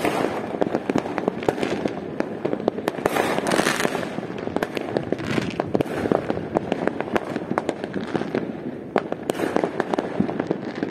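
Many fireworks and firecrackers going off, a dense, unbroken run of overlapping bangs and pops of varying loudness.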